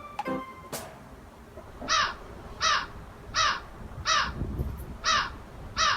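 A bird's short, harsh calls, each falling in pitch, repeated about every 0.7 s from about two seconds in, played back as a sound clip.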